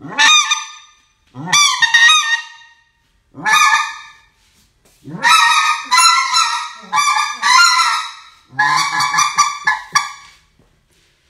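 A mouth-blown goose call honking in five loud bursts, the later ones broken into quick runs of several notes, each note rising sharply in pitch.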